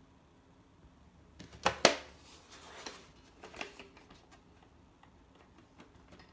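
Clicks and knocks of hard objects being handled: two loud knocks close together a little under two seconds in, followed by scattered lighter clicks.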